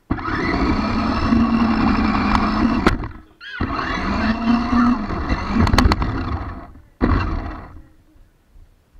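Electric motor and gears of a radio-controlled car running hard, heard from on board the car, in three bursts: two of about three seconds, each spinning up quickly at the start, and a shorter one near the end.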